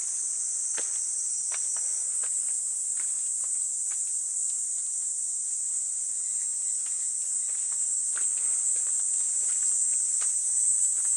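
A steady, high-pitched insect chorus, with footsteps on a stone path strewn with leaves at a walking pace, about one step every 0.7 seconds.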